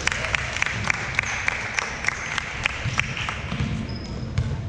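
Spectators applauding in a gym, with claps at a steady beat of about three a second; it fades out after about three seconds. A short sneaker squeak on the court near the end.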